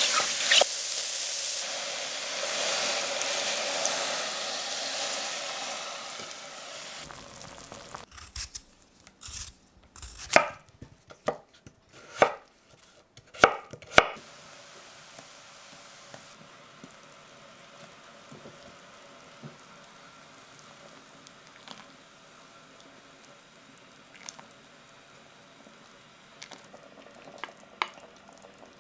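Chopped mushrooms sizzling in oil in a steel pot as they are stirred with a wooden spatula, the sizzle fading over several seconds. Then a chef's knife chops potato on a wooden cutting board: about seven sharp chops. A faint steady hiss with a few light clicks follows.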